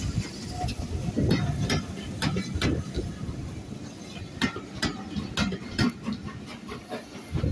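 A train of passenger coaches rolling past close by: a steady rumble of wheels on the rails with irregular clicks and clunks from the wheels and bogies.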